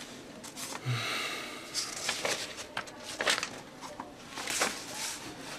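Paper pages rustling as a notebook is leafed through, in a few short bursts, with a soft breath about a second in.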